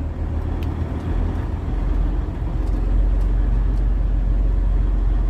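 Semi truck's diesel engine running under way, a steady low rumble heard from inside the cab, getting louder about two seconds in as it pulls harder.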